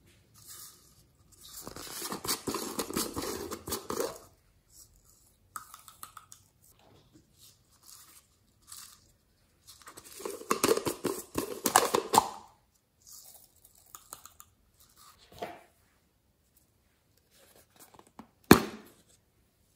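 Small plastic containers handled and opened: two stretches of rattling, crackling rustle as glitter is shaken out of egg-shaped plastic containers, light clicks of plastic in between, and one sharp snap near the end as the lid of a round plastic tub of clay comes off.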